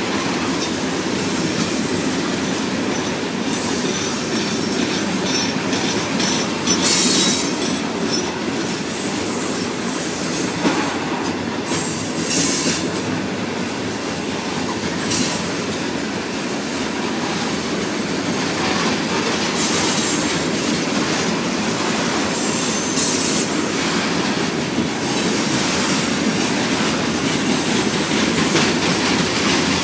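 Norfolk Southern freight train's cars rolling past in a steady rumble, with brief high-pitched wheel squeals coming again and again, and some clicking of wheels over rail joints.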